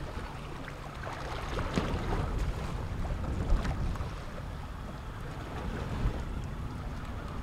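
Wind noise on the microphone over waves washing against a small boat at sea, with a few sharp clicks.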